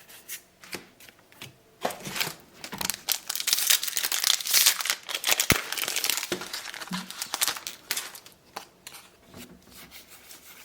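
Trading card booster pack wrapper being torn open and crinkled, loudest from about two to seven seconds in, followed by quieter rustling as the cards are handled.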